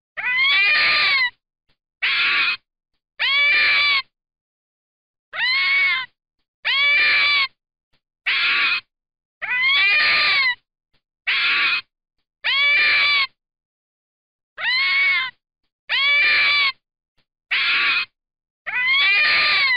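A fox's high, whining calls, about a dozen in a row with short silent gaps between them. Each call rises and then falls in pitch.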